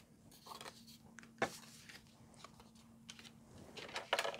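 Paper cards and kraft card-stock tags being handled and set down on a work mat: soft rustling and light taps, with one sharp tap about a third of the way in and a flurry of rustling near the end.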